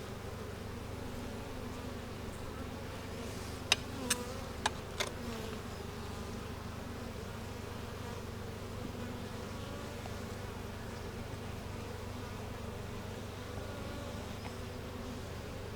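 Honeybees buzzing steadily around an opened hive. About four seconds in, four sharp knocks come in quick succession.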